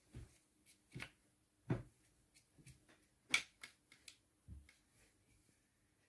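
A run of light, irregular clicks and taps, about ten in six seconds, the sharpest a little past halfway: small hard objects being handled and set down, such as painting supplies.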